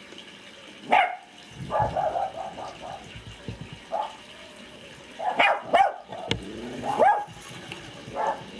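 A dog barking, with single barks and short runs of barks spaced a second or more apart.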